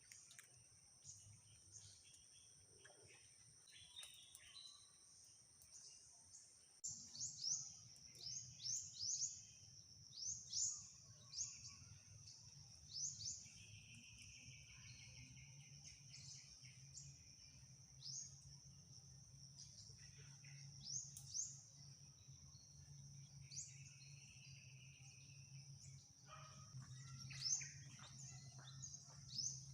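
Birds chirping outdoors, a run of short rising chirps repeated every second or so from about seven seconds in, over a steady high-pitched background hum and a faint low rumble.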